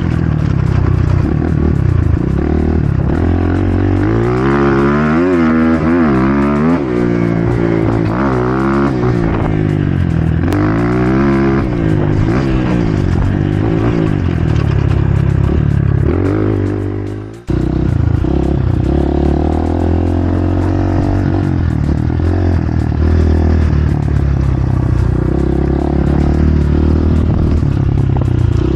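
LEM J4 dirt bike's 250 cc Zongshen four-stroke single-cylinder engine being ridden, revving up and falling back again and again as the throttle is worked and gears are changed. About two-thirds of the way through, the sound drops out briefly and sharply, and the engine then runs more steadily.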